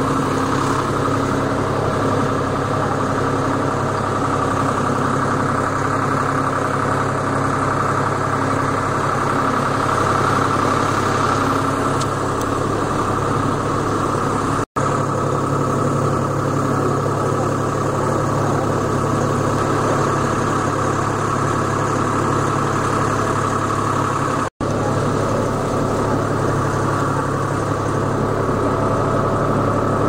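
A tractor engine running steadily at an even speed while it pulls along a trail. The sound breaks off for an instant twice.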